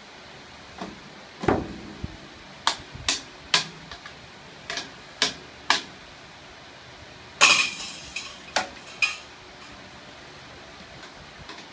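Toy drum kit played with sticks by a small child: about a dozen irregular strikes on the plastic drums, with a ringing toy-cymbal crash about seven seconds in.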